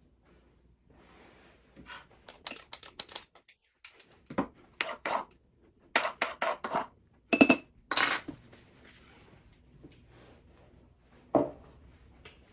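Kitchenware clattering: a busy run of knocks and clinks of utensils and dishes from about two seconds in, one clink ringing briefly, then a single knock near the end.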